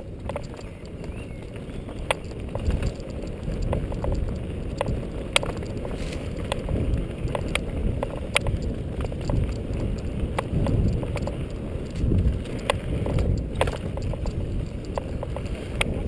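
Mountain bike riding down a dirt forest trail: a continuous low, uneven rumble of tyres on the ground, with frequent sharp clicks and rattles as the bike jolts over roots and bumps.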